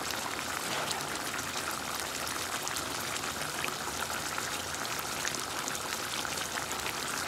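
Chicken and bottle gourd curry simmering in a nonstick wok: a steady bubbling hiss with many small pops.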